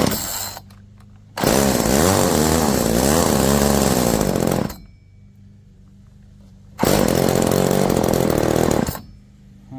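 Small two-stroke engine of a chainsaw winch running at a low idle and being revved hard twice, the first rev rising and falling in pitch for about three seconds, the second held for about two seconds near the end. It has just started after choke and half-choke pulls and its carburetor is not yet tuned.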